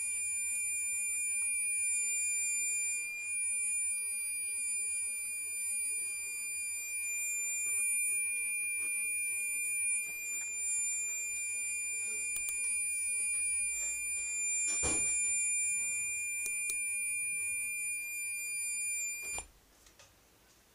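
Asus Transformer Book T100 giving off a steady, high-pitched electronic tone, the fault of its persistent sharp beep that the November 2013 firmware update did not cure. A single knock sounds partway through, and near the end the tone cuts off suddenly.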